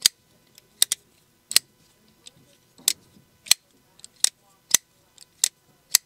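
Titanium Giant Mouse Tribeca folding knife being flipped open and shut over and over: about nine sharp metallic clicks as the blade snaps into lockup and closes, roughly one every half second to second.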